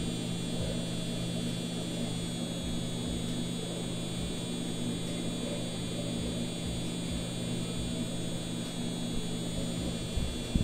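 Foreo UFO 2 facial device running with its T-Sonic pulsations and cooling on: a steady electric hum with a faint high whine over it. A single short click near the end.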